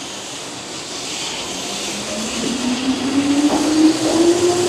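Keihan 8000 series electric train pulling away and accelerating. Its traction motors give a whine that rises steadily in pitch as the train gathers speed, growing louder, with a few sharp wheel knocks over the rails near the end.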